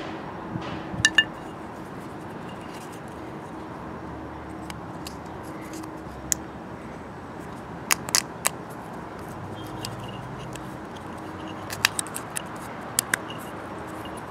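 Metal suspension ball joints clinking and knocking against each other as they are handled and fitted together, in scattered sharp clicks: a pair about a second in, a few around the middle and a cluster near the end, over steady background noise.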